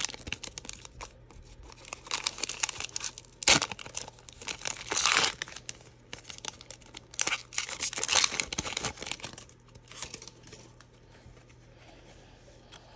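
Foil wrapper of a football trading card pack crinkling and tearing as it is ripped open by hand, in irregular bursts, the loudest about three and a half and five seconds in. The rustling dies down over the last few seconds.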